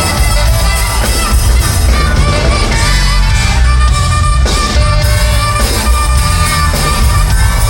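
Loud band music with a heavy bass line and held instrument tones, playing continuously.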